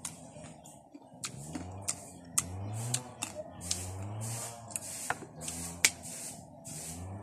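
A person eating unripe green mango with chili and salt: sharp clicks of crunching and lip-smacking, hissing breaths, and short wordless hums that rise in pitch at the sourness.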